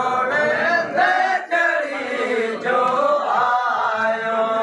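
A group of men singing together in a chant-like style, several voices overlapping.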